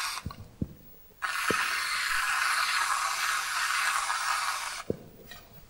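Aerosol can of whipped cream hissing steadily as it sprays a swirl of cream onto a glass of coffee, for about three and a half seconds. It starts suddenly about a second in and cuts off near the end, with a few light clicks around it.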